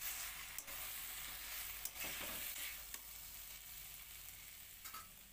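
Sima alu (flat beans and potatoes) in masala sizzling in a steel kadai, stirred with a steel spatula that scrapes and clicks against the pan a few times.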